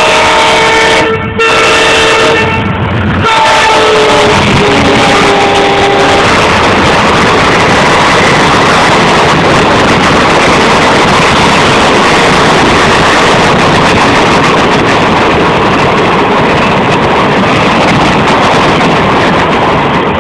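WDM-3A ALCO diesel-electric locomotive horn sounding, with a short break about a second in, then a few shorter toots up to about six seconds in. After that comes a loud, steady rush of the locomotive and coaches passing at speed close by.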